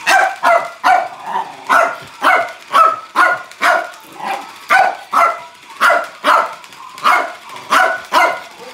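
Small dog barking over and over at a flashing light-up toy ball, about two sharp barks a second.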